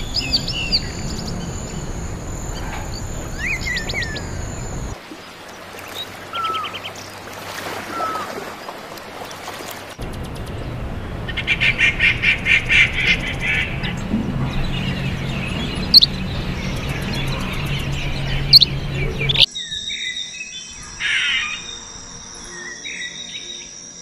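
Various wild birds calling and chirping, with short whistles and chirps, then a rapid series of pulsed calls for a few seconds. The background changes abruptly several times. Near the end a steady high-pitched insect drone sets in beneath the chirps.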